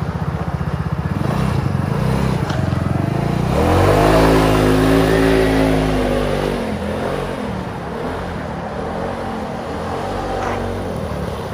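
Trailmaster XRX 200 go-kart's 169cc four-stroke single-cylinder engine idling, then revving up about three and a half seconds in as the kart pulls away. Its pitch falls after a few seconds and then rises and dips with the throttle as the kart drives off.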